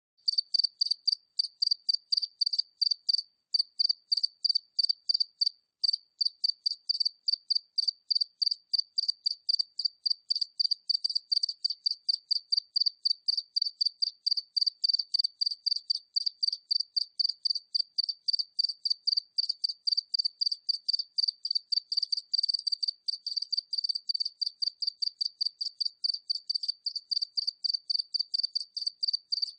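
A single cricket chirping: a high, even chirp repeated several times a second in a steady rhythm, with two short breaks in the first few seconds.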